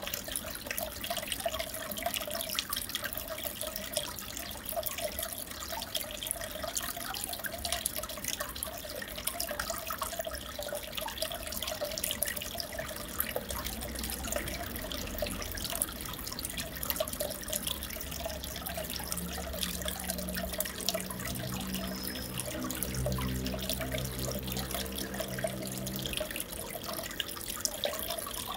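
Aquarium water trickling and bubbling steadily, full of fine crackles. A low hum of several steady tones comes in about two-thirds of the way through and stops shortly before the end.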